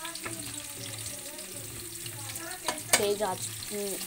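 Sliced onions sizzling steadily in hot oil in a steel kadhai over a high flame, at the start of frying to light golden brown. A metal ladle stirring them clicks against the pan, loudest about three seconds in.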